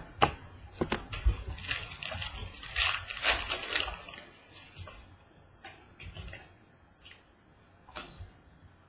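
Trading cards being handled: cards sliding and flicking against each other, with a denser stretch of rustling about two to four seconds in and a few lighter clicks later.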